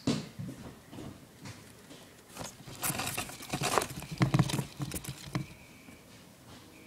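Irregular scratching, tapping and rustling on cardboard and plastic as a hamster moves about a cardboard-box playpen and a hand shifts toys beside it. The noises come in short clusters and thin out for the last second or so.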